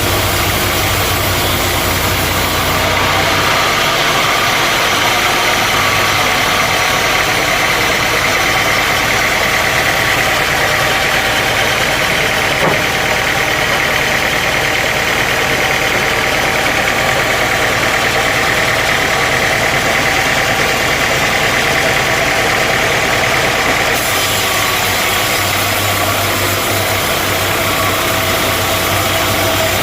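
Sawmill machinery running loudly and steadily. About three seconds in the sound shifts, the low hum fading and a higher whine coming up, and about twenty-four seconds in it shifts back.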